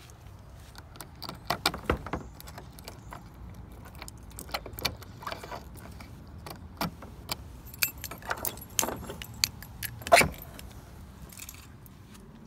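Keys jangling and sharp metal clicks as the keyed hasp lock on a vinyl fence gate is worked open, with a louder clack about ten seconds in.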